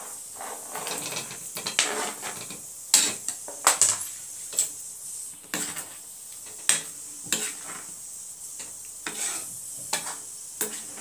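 Slotted metal spatula stirring paneer cubes into simmering spinach gravy in a metal kadhai: irregular clinks and scrapes against the pan, over a steady faint sizzle.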